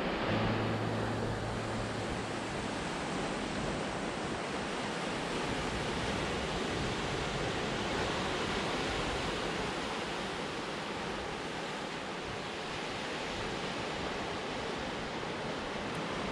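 Ocean surf breaking on a rocky granite shore, a steady wash of noise.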